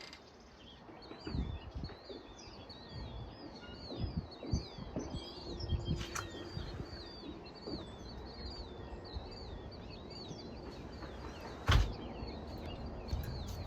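Birds chirping over and over in short swooping notes, with scattered low thumps and one sharp loud knock near the end.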